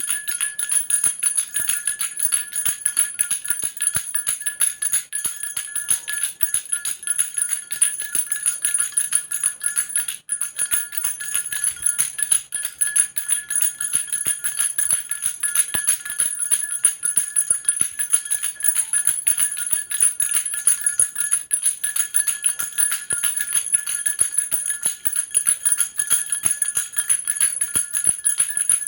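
Baby rattle shaken continuously: rapid, even jingling with a steady high ringing, like small bells.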